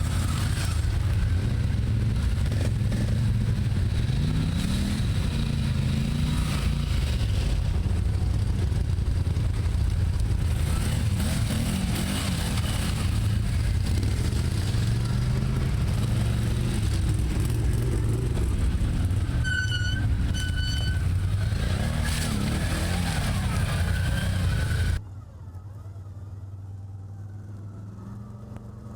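ATV engine running under changing throttle while riding over rough ground, its pitch rising and falling. About two-thirds of the way through come two short high beeping tones, and near the end the sound drops abruptly to a much quieter steady engine hum.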